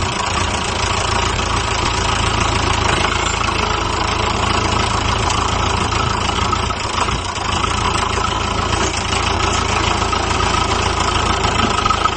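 Ford tractor engine running steadily under load as the tractor, a pole lashed across its rear wheel, drives itself out of a mud hole.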